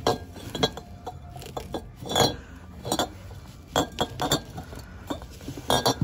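Glass items clinking and knocking together in irregular bursts, with a rustle of bubble wrap and plastic, as a box of wrapped glassware is rummaged through by hand; the loudest clink comes about two seconds in.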